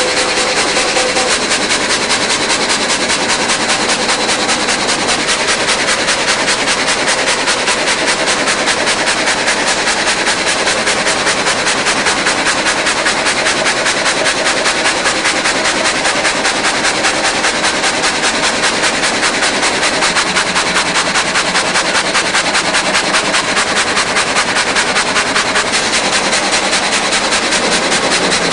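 Multi-blade rip saw running steadily, a loud dense machine noise with a fast, even rattle and a thin high whine.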